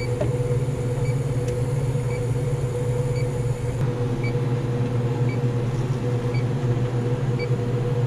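Refrigerant leak detector (Inficon Stratus) giving a short high beep about once a second at an even, unchanging rate while it scans, over a loud steady low machine hum.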